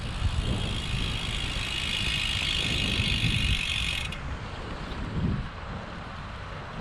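Bicycle freewheel ticking rapidly while coasting, over low wind rumble on the microphone; the ticking stops suddenly about four seconds in.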